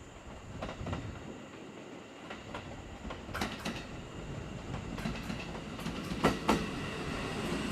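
JR East 651 series electric train rolling past, its wheels clacking over rail joints. The rumble grows louder as the cars come alongside, and the clacks start about three seconds in and come louder and closer together toward the end.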